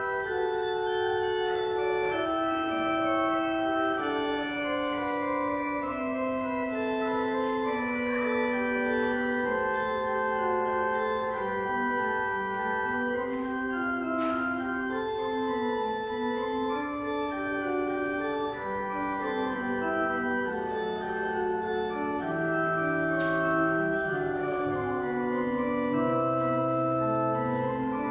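Church organ playing slow, sustained chords in several voices, with the bass line stepping downward.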